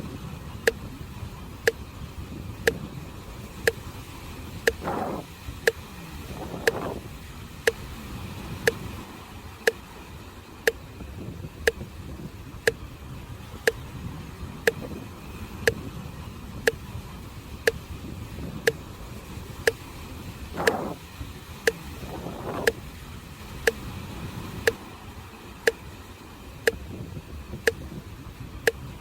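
A sharp, even tick about once a second, like a metronome, over a continuous low rush of sea waves. Twice, a pair of brief louder swooshes rises above the rush.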